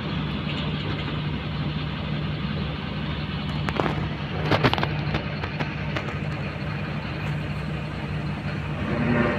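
Heavy truck's diesel engine running steadily at a low, even pitch. A few short clanks come about four to five seconds in.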